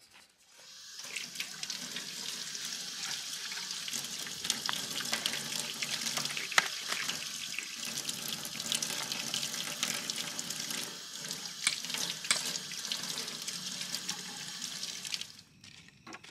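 Water running from a tap into a stainless-steel sink, splashing over a vegetable being rinsed by hand under the stream. The tap comes on about a second in and is shut off about a second before the end.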